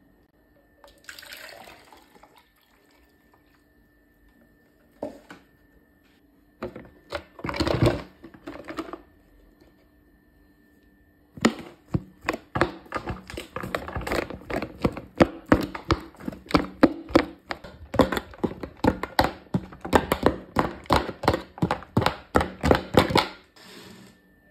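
Wet lemon pulp being handled and packed into a plastic water bottle. A few scattered squelches and knocks come first, then about halfway in a dense run of quick, irregular clicks and knocks.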